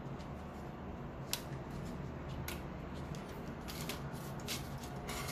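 Hard plastic clicks and snaps as a part is worked off a plastic model kit's runner and the runners are handled: a sharp click about a second in, another a second later, then a quick run of clicks near the end, over a steady low hum.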